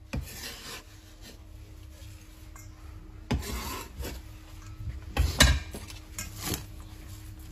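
Minced garlic scraped and pushed together across a wooden chopping board, a dry rubbing scrape, followed by a few sharp knocks about three, five and six and a half seconds in.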